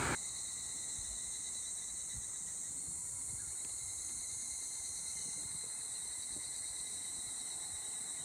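Insects calling from roadside trees and brush: a continuous, steady, high-pitched drone.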